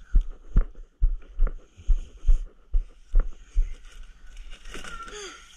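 Footsteps on a wooden deck at walking pace, about two steps a second, while large sheets of corrugated cardboard are carried. The steps stop about four seconds in, and the cardboard rubs and scrapes as it is worked through a doorway.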